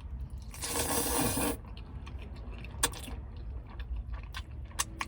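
Close-miked eating sounds: a noisy rush lasting about a second, then two sharp clicks a couple of seconds apart.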